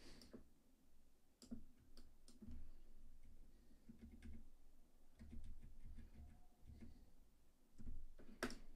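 Faint, scattered clicks and taps of a computer mouse and keyboard, a few each second, irregular.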